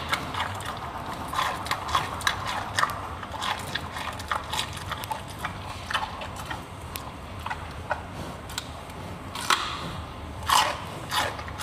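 Giant panda biting and chewing a piece of raw carrot, a run of irregular wet crunches, with a few louder bites near the end.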